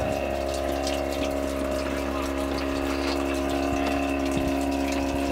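A small electric water pump running with a steady hum, with water flowing, as the boat's freshwater tank is drained.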